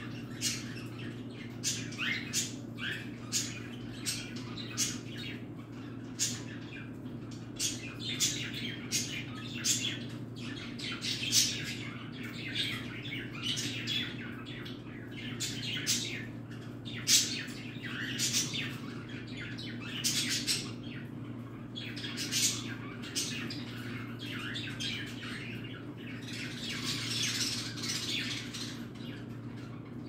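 Budgerigars chirping: short, sharp chirps about once or twice a second, with a longer stretch of chatter near the end, over a steady low hum.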